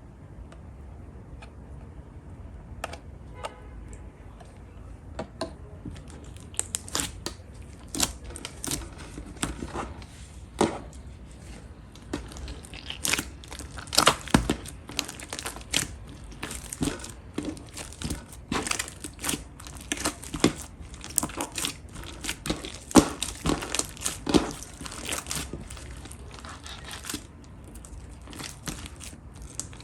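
Pastel pink slime being pressed and squeezed by hand, giving irregular crackling and popping clicks as air pockets burst. The clicks are sparse at first and come thick and fast from a few seconds in.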